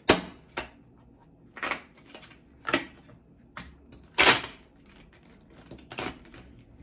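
A deck of tarot cards being shuffled by hand: short papery slaps and riffles about once a second, the loudest and longest a little past four seconds in.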